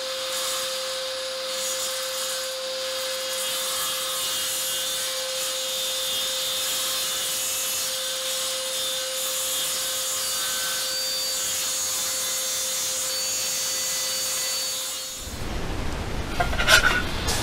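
DeWalt electric saw running and cutting, a steady high whine over a rasping hiss at an even level. It stops abruptly about fifteen seconds in.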